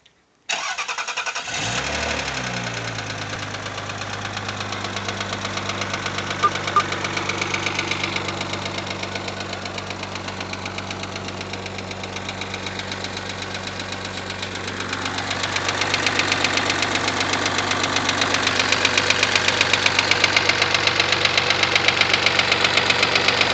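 Rover 75's 2.0 KV6 V6 (20K4F) running with a heavy, fast, rhythmic metallic knock that grows louder about two-thirds of the way through. The knock comes from two pieces of metal debris in cylinder five, one trapped between a valve head and its seat and the other loose in the combustion chamber.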